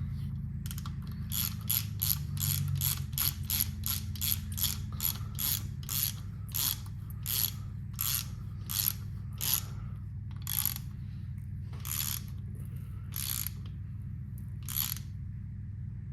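Hand ratchet wrench clicking as it is swung back and forth to run a bolt down on an engine: the strokes come quickly at first, then grow slower and further apart as the bolt tightens, and stop shortly before the end.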